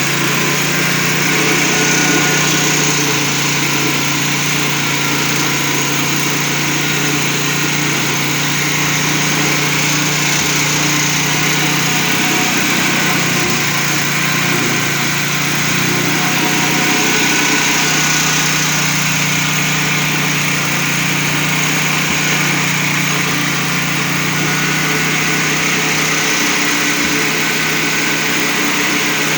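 Engine-driven maggot-feed pulping machine running steadily, with a constant hum and a dense, even mechanical whir, during a trial on corn cobs.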